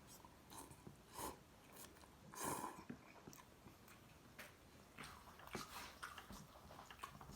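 Quiet chewing of instant ramen noodles, with scattered soft mouth clicks and smacks and a couple of louder wet swells about one and two and a half seconds in.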